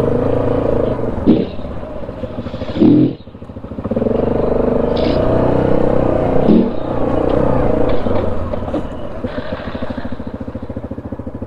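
ATV engine running while riding a trail, dropping off briefly about three seconds in and then picking back up.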